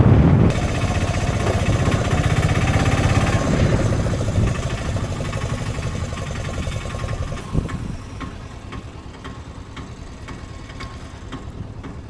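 A motor vehicle's engine running with a rapid knocking beat, loud at first and then fading away. A quieter hum with a few light clicks is left near the end.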